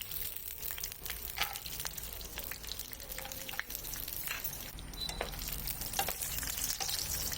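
Cashews frying in hot ghee and oil in a pan: a steady sizzle with scattered crackles and clicks.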